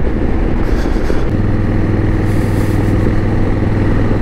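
Motorcycle engine running steadily on the road at cruising speed, over a constant rush of noise. About a second in, its note settles into a steady, even pitch.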